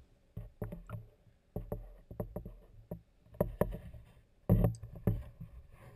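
Water sloshing and irregular knocks picked up by an underwater camera held on a pole, with about a dozen uneven bumps, the loudest near the middle.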